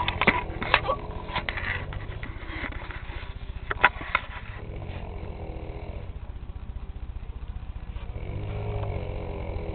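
A man snoring loudly, with two long, rattling snores in the second half. A few sharp clicks sound in the first four seconds.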